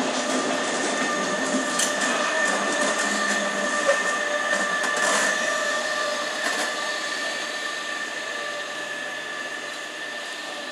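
Electric passenger train of double-deck coaches running over pointwork: a steady whine from the locomotive's traction equipment over wheel and rail noise, with a few sharp clicks from the wheels crossing rail joints and points. It grows gradually fainter through the second half as the train draws away.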